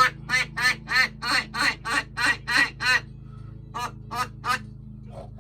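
Duck quacking as an added sound effect: a quick run of quacks, about three a second, then after a short pause three more quacks.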